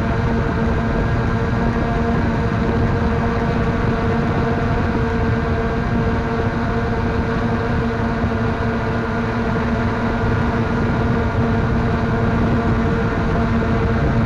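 3DR Solo quadcopter's motors and propellers humming steadily in flight, picked up by the camera on board: a constant buzzing hum over a steady rushing noise.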